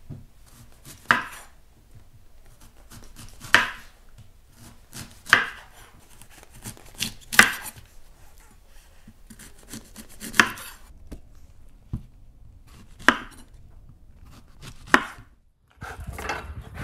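Chef's knife slicing through a raw quince and striking a wooden cutting board: about seven separate sharp cuts, one every two seconds or so. Near the end a steady low noise takes over.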